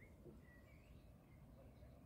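Near silence with a few faint, brief bird chirps and a low rumble underneath.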